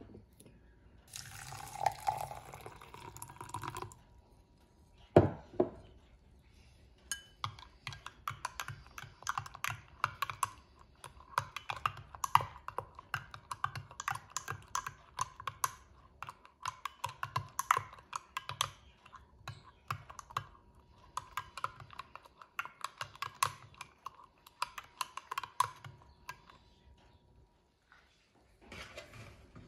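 A short pour of liquid into a drinking glass, then a single sharp clink. After that comes about twenty seconds of a long metal spoon stirring fast in the glass, a dense run of quick clinks against the glass in uneven bursts, as instant coffee is beaten into a froth.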